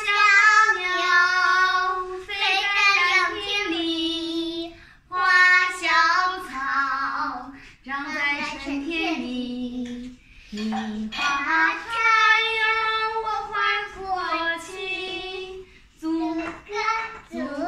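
A young girl singing a song solo, in held, shifting notes with short pauses between phrases.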